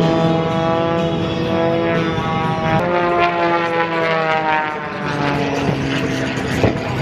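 Single-engine propeller aerobatic plane flying overhead, its engine and propeller giving a steady pitched drone. The pitch jumps up about three seconds in and then slides slowly down.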